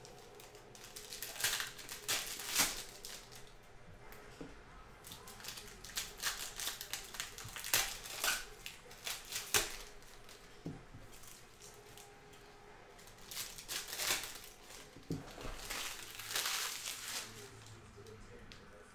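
Foil wrappers of Panini Chronicles basketball card packs crinkling and tearing as packs are ripped open, along with cards being handled. The crinkling comes in three spells of a few seconds each, with quieter gaps between.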